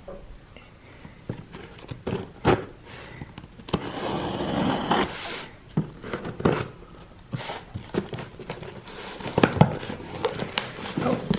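Scissors slitting the packing tape on a cardboard box while hands handle it: a longer scraping rasp about four seconds in, with sharp knocks and taps before and after.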